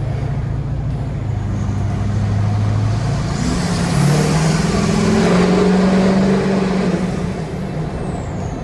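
A road vehicle driving: its engine hum climbs in pitch about three to four seconds in as it speeds up, then holds steady and eases off slightly near the end.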